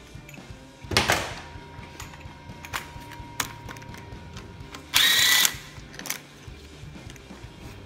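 A cordless electric ratchet runs in one short burst of about half a second with a high motor whine, undoing one of the 12 mm bolts on the thermostat housing of a Nissan YD25 diesel engine. A sharp metallic clunk comes about a second in, and a few light clicks follow.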